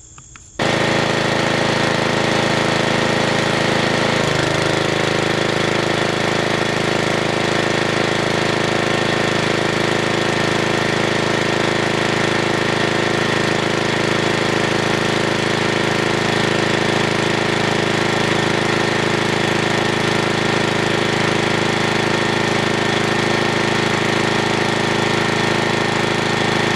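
Carbon arc between two carbon electrodes, drawing current from a generator through a rectifier, struck abruptly about half a second in, then buzzing and hissing loudly and steadily. The lower tones shift briefly near 4 s.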